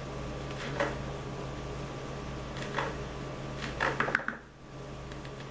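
A few light, sparse knife taps on a cutting board while fresh rosemary is chopped fine, over a steady low hum.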